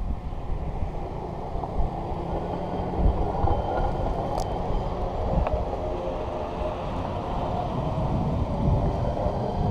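Hi-rail pickup truck running along the railroad track: a steady engine and rolling noise from the truck on the rails.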